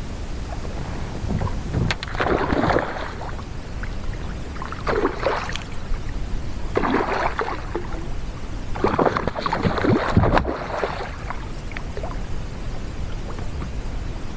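A hooked bowfin splashing and thrashing at the water's surface beside a kayak, in four irregular bursts of a second or two each.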